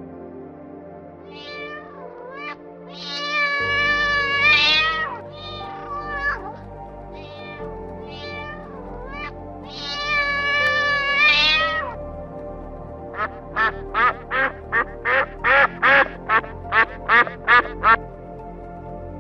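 A domestic cat meowing over and over, some meows long and drawn out, others short. From about 13 s, waterfowl give a quick run of about a dozen short quacks, roughly three a second. Soft background music plays throughout.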